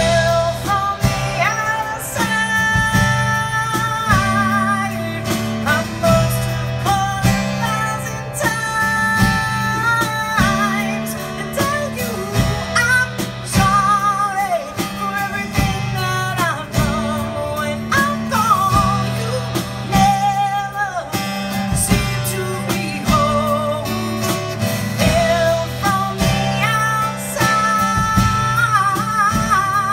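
Live band playing a slow song acoustically: strummed acoustic guitar and a drum kit under a wavering lead melody with vibrato.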